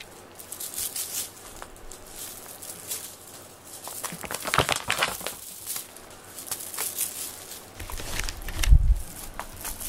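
A Japanese-made string cat teaser with a crinkly filling inside the cord, being swished and dragged over foam floor mats, giving rustling, crinkling swishes in irregular bursts. A dull low thump near the end is the loudest sound.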